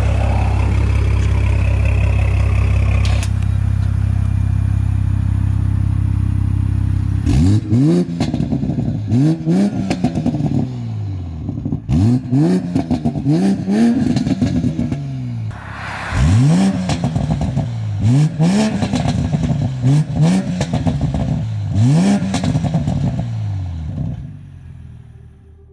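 2020 Toyota Supra engine through a Forged Projects valved exhaust with a catless downpipe, idling steadily and then revved about eight times, each rev rising quickly and falling back, with crackles and pops.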